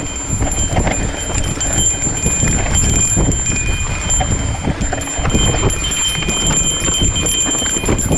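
Mountain bike rolling fast down a rough, rutted dirt trail: the frame and parts rattle and knock over the bumps, with a steady low rumble of the ride throughout.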